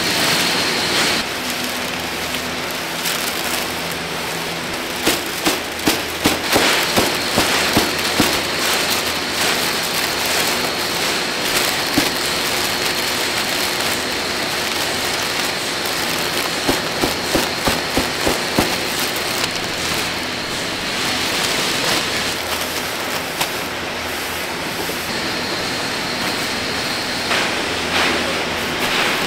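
Steady factory hiss with a machine hum, over which large plastic sacks of crisp snack pieces crinkle and crackle as they are handled and twisted shut, in two spells of sharp rustling.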